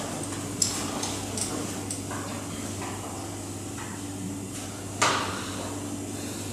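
Steady low hum with a held tone above it, scattered clicks and crackles, and a sharp knock about five seconds in, from a live experimental sound performance.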